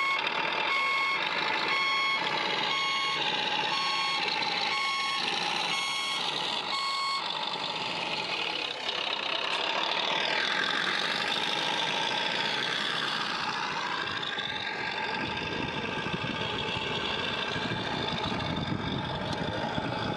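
Reversing beeper on a radio-controlled truck, beeping about once a second some eight times, then stopping. After that, a whine slides up and down in pitch.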